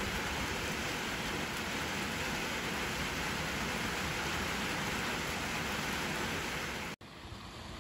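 Steady rain falling on wet pavement and puddles. It cuts off suddenly about seven seconds in, leaving a quieter background.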